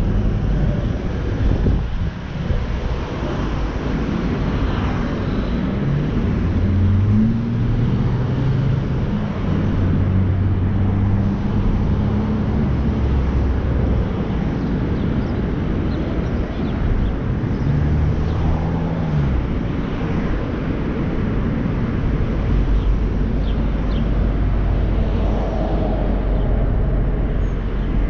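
Car driving through city streets: steady engine and road rumble, with a low engine hum that rises and drops in pitch a few times as the car speeds up and slows.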